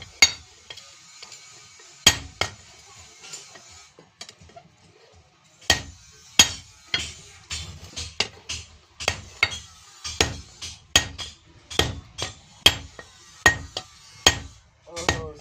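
Blacksmith's hand hammer striking steel on an anvil in hand forging, each blow ringing briefly. A few blows come in the first couple of seconds, then a pause, then a steady run of about two blows a second from around six seconds in.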